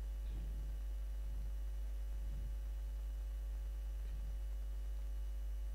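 Steady low electrical hum, with no other clear sound.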